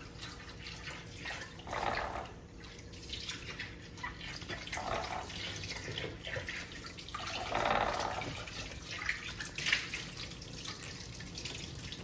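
Water splashing and dripping as a monk parakeet bathes on a wet plate, fluttering its wings and shaking its feathers in several short bursts, with a green-cheeked conure shaking off water beside it.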